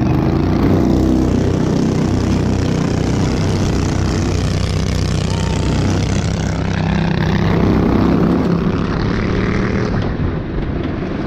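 Off-road go-kart engine running under throttle, heard from the driver's seat, its note rising and falling a little as the throttle changes.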